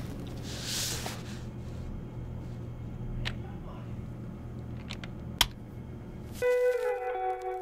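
Vinyl records and a turntable being handled: a few light clicks, the sharpest about five and a half seconds in as the record and tonearm are set, over a steady low hum. About six and a half seconds in, music starts with a sustained chord.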